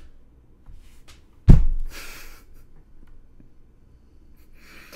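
A sharp puff of breath hits a close microphone about one and a half seconds in, followed by breathy exhales and another breath near the end: a person stifling a laugh.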